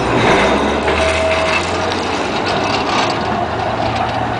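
Blackpool Balloon double-deck tram passing close by and pulling away along the track: wheels running on the rails with scattered clicks over a steady low hum, and a brief steady whine about a second in.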